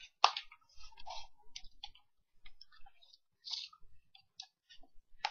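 Plastic handle parts of an electric mosquito racket being handled and pushed together: one sharp click about a quarter second in, then a scatter of light plastic clicks and taps.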